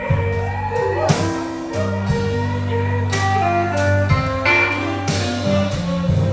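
Live blues band instrumental: hollow-body electric guitar playing a lead line with bent notes over a stepping bass line, with a sharp beat about once a second.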